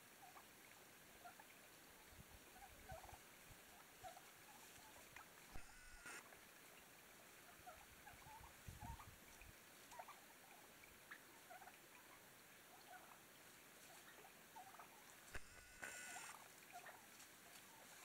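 Wild turkeys foraging, with faint soft clucks scattered throughout and two louder brief calls, about six seconds in and again about fifteen seconds in.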